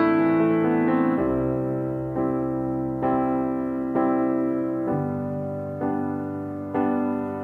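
Slow background piano music, a new note or chord struck about once a second and left to ring.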